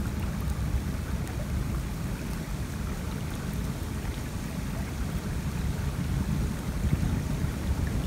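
Flowing stream rushing steadily, with a low rumble of wind buffeting the microphone.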